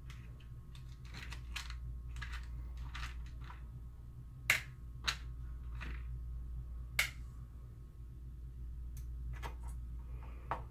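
Scattered light clicks and taps of small screws and parts being handled and a screw being fitted with a hand screwdriver, with three sharper clicks around the middle, over a steady low hum.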